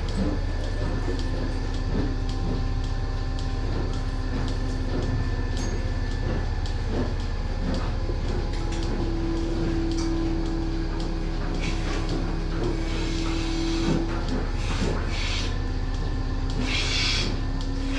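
Steady drone of dairy milking equipment running, with humming tones that come and go. A short hiss comes near the end.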